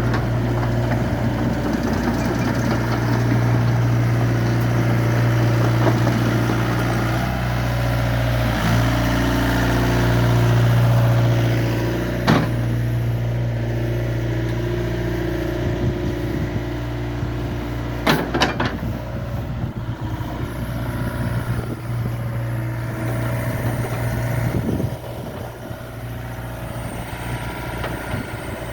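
A 2018 Hitachi ZX65USB-5A compact excavator's diesel engine running steadily, with a few sharp knocks, one about halfway through and two close together later on. Near the end the engine sound drops to a quieter level.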